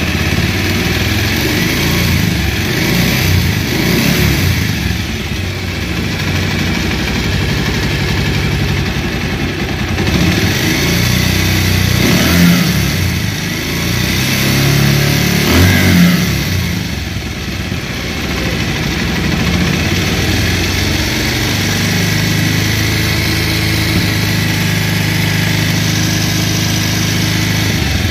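Bajaj Pulsar motorcycle's single-cylinder engine idling with a rattly bad noise, revved briefly twice about halfway through. The mechanic puts the noise down to a cylinder and piston worn after about 60,000 km, loose at the compression area.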